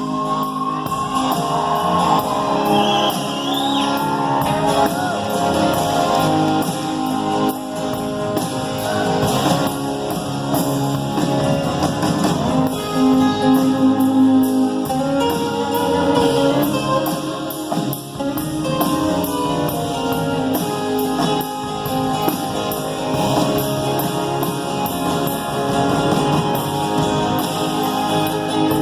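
Live rock band playing a song, guitars to the fore, with some singing in the mix.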